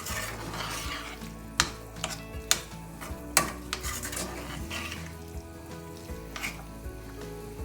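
Broad beans sizzling in olive oil in a pan while they are stirred. A utensil knocks sharply against the pan a few times.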